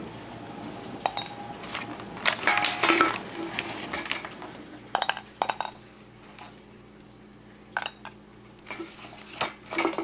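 Irregular light clicks and knocks from handling hollow plastic ping pong balls and their plastic blister pack, with the balls going into a carved, hollowed-out pumpkin; a few louder knocks come about halfway through and near the end.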